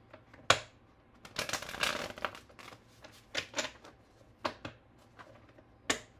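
A deck of tarot cards shuffled by hand in short goes: a sharp snap of the cards about half a second in, a longer rustling shuffle soon after, then a few quick card flicks and another snap near the end.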